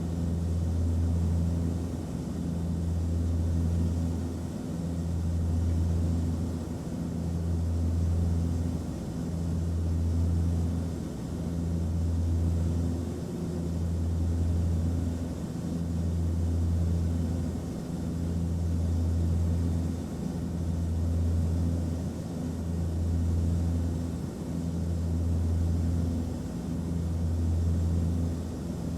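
Airplane cabin noise: a steady low engine drone with fainter hum tones above it. It swells and eases in a regular pulse about every two seconds.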